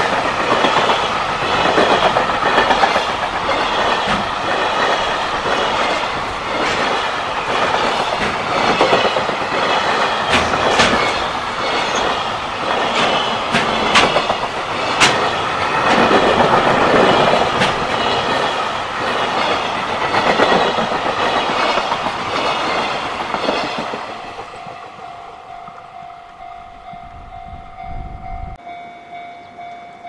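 Container freight train of flat wagons passing close by at speed, a loud, steady rush with wheels clacking over rail joints, then falling away about 24 seconds in as the last wagons pass. After that a level-crossing warning bell rings steadily.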